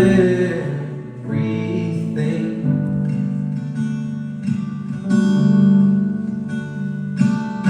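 Live song performance: a strummed acoustic guitar, with a male voice singing a drawn-out word about two seconds in.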